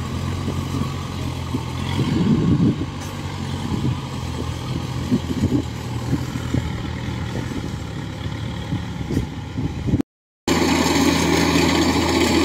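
Engine of a motorised farm hauler loaded with rice bags running as it drives up a muddy track, with irregular low knocks and rattles. After a short dropout about ten seconds in, the steady drone of a Kubota DC105X combine harvester working the field takes over.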